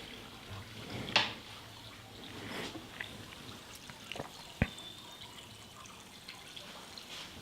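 Quiet room tone with a few scattered faint clicks and taps; the sharpest comes about four and a half seconds in.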